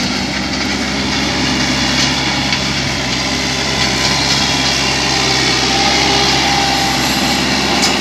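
JCB 3CX backhoe loader's diesel engine running steadily as the machine drives forward with its front loader bucket lowered.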